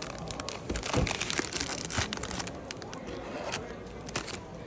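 Irregular crackling and rustling with many scattered clicks, like something being handled or crumpled.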